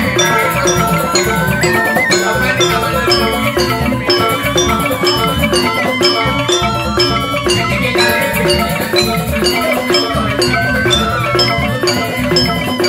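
Balinese joged bumbung gamelan playing: bamboo xylophones (grantang) struck in a fast, evenly repeating pattern over a kendang barrel drum.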